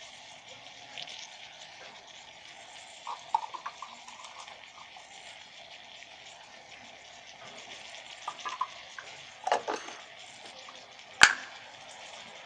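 Onion-and-tomato masala frying in oil in an electric kettle, a steady soft sizzle, while it is stirred. The stirring utensil clicks against the kettle in a few short bursts, with one sharp knock near the end.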